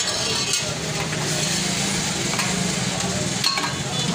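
Busy street bustle: a steady motorcycle engine hum from the lane, with a few sharp metal clinks of a serving spoon on pots and plates.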